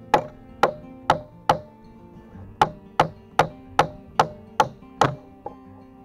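Hatchet used as a hammer, driving nails into the pine logs of a tower floor: sharp, ringing blows about two to three a second, four strikes, a short pause about a second and a half in, then seven more.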